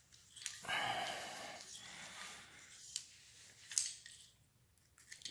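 Quiet handling of bicycle brake cables and a cable connector. A soft rushing sound starts about a second in and lasts about a second, followed by a couple of light clicks.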